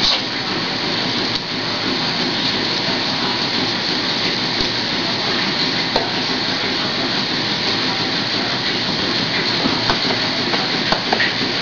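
Steady, loud rushing hiss with no clear pitch, and a few faint clicks and taps in the second half.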